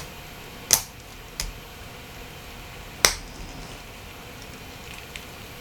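A few sharp clicks of small plastic parts and a tool as the microphone is worked out of a Nokia 8910i's housing, the loudest about three seconds in.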